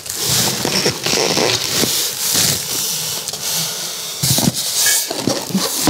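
Packaging rustling, crackling and scraping as the parts of a stand mixer are pulled from their box, with a few short squeaks near the end.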